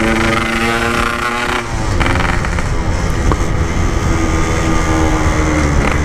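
Yamaha RX-King 135cc two-stroke single-cylinder motorcycle running on the road. A steady engine note breaks off about a second and a half in into a rougher rush with a low rumble. A steady, slightly falling engine note then returns.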